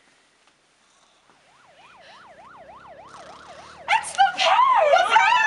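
A siren-like wail rises out of near silence, its pitch sweeping up and down about three times a second and growing louder. About four seconds in it breaks into a loud jumble of many overlapping wailing tones.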